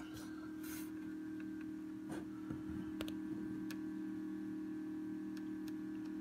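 Egg incubator's fan motor humming steadily, with a few scattered light clicks over it.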